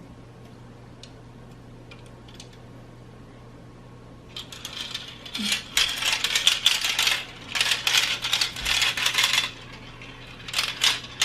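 Mini marbles clicking and rattling down a plastic marble run track: a dense clatter of rapid clicks starts about four seconds in, stops briefly, then comes back near the end.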